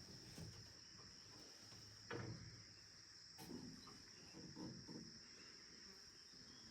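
Near silence, with faint, steady, high-pitched insect chirring from crickets or similar field insects, and a soft low knock about two seconds in.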